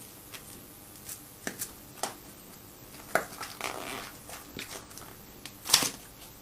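Hands handling a fresh 3D print and the printer's build plate: scattered light clicks and taps with a brief rustle, and one sharper knock near the end.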